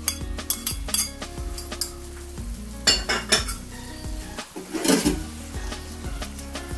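A spoon clinking and scraping against a ceramic plate as chopped spring onion and celery are pushed off it into a wok of soup, a series of sharp clinks. About five seconds in, a metal spatula stirs and scrapes in the wok.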